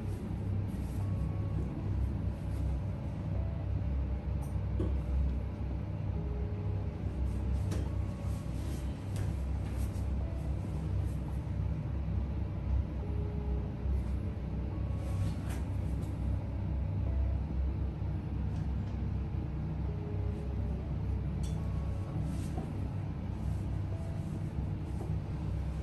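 Steady low rumble with soft background music and a few faint clicks.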